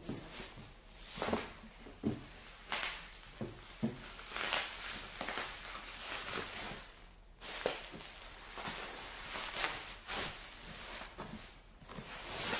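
A large cardboard box being pushed and handled in its bubble-wrap packing: irregular rustles, scrapes and light knocks, about one or two a second.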